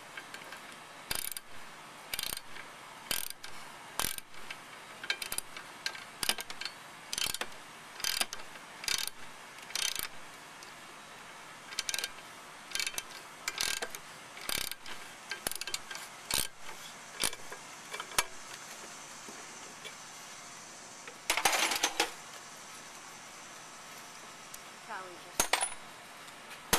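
Hand ratchet clicking in short runs, about one a second, as it turns a quarter-inch socket on the bolts holding the muffler to a lawnmower engine. There is a longer run of clicks a few seconds before the end.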